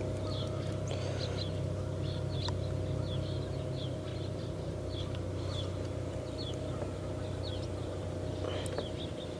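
Small birds chirping repeatedly, short high calls again and again, over a steady low hum.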